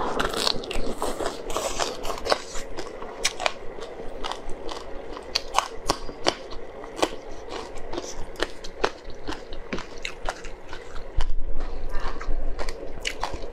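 Close-up eating sounds: slurping glass noodles, then chewing, with many sharp wet mouth clicks and some crunching as a fresh red chili pepper is bitten. A louder stretch with a low rumble comes about eleven seconds in.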